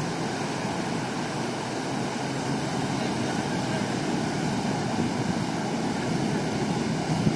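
Steady surf and wind noise at the shoreline, an even rushing with no distinct engine note.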